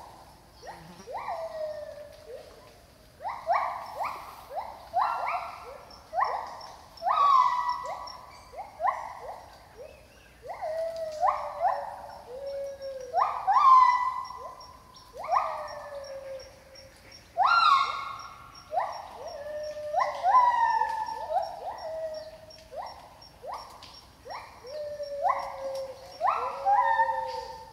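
A pair of gibbons singing in the rainforest canopy: a long run of loud whooping notes, each swooping sharply up and then sliding down in pitch, about one a second.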